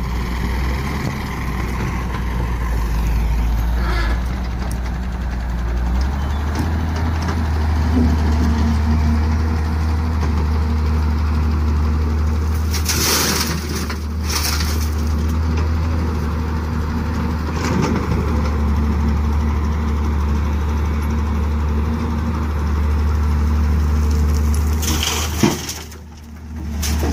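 Diesel engines of a Hyundai wheeled excavator and a farm tractor running steadily together, a deep continuous drone. About halfway through there is a rushing noise as a bucketload of soil is dumped into the tractor's trolley, and a short sharp sound comes near the end.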